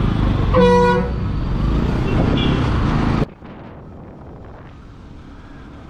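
Street traffic heard from a motorcycle riding beside a bus: steady road and engine noise, with a vehicle horn honking once, briefly, just under a second in. About three seconds in the sound cuts abruptly to a much quieter, steady ride hum.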